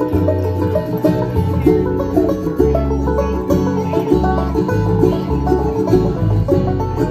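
A bluegrass band playing live: banjo, mandolin and acoustic guitar picking over an electric bass line.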